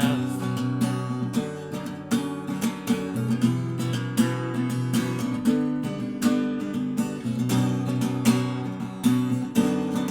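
Acoustic guitar strummed in a steady rhythm, chords ringing on each stroke, with no voice.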